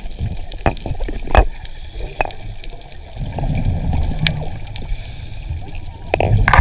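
Underwater sound around a scuba diver: a low bubbling rumble of exhaled breath about three seconds in, and a faint hiss near the end. Sharp clicks and knocks of the camera housing or gear are scattered throughout.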